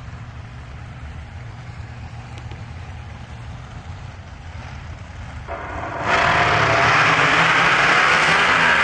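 Drag race car engines rumbling at a low idle, then, about six seconds in, a sudden jump to a loud, steady full-throttle run that holds on.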